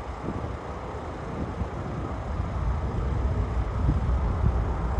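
Jet noise from a twin-engine Boeing 787-8 airliner on final approach, a steady rushing rumble that grows slowly louder as it nears. Wind gusts buffet the microphone.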